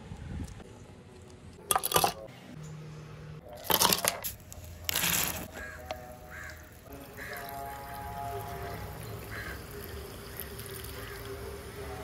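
Bottle of carbonated water cracked open with three short hissing bursts of escaping gas. Then the fizzy water is poured into a glass of ice, a steady fizzing pour whose pitch shifts as the glass fills.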